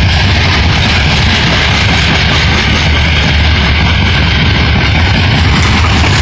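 CSX freight train rolling past close by: a loud, steady rumble of wheels on rail with a hiss of rail and wind noise over it.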